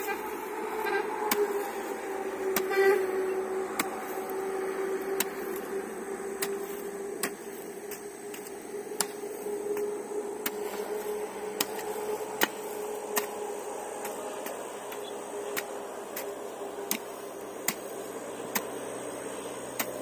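A steel hoe chopping into dry, stony soil in steady strokes, a sharp strike roughly every three-quarters of a second. A steady droning hum runs underneath.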